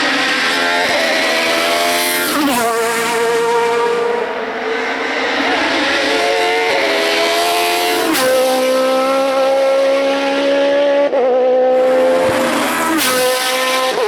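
Racing car engine running at high revs. Its pitch holds steady for a few seconds at a time and shifts sharply about three times as the driver changes gear or comes off the throttle.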